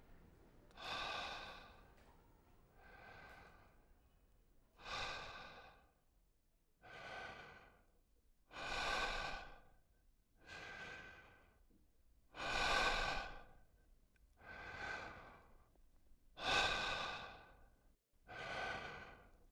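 A man letting out long voiced sighs one after another, about ten in all, roughly one every two seconds, the loudest near the middle and toward the end.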